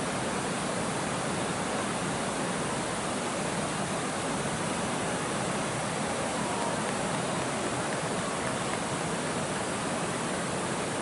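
Steady rushing of a shallow river running over riffles.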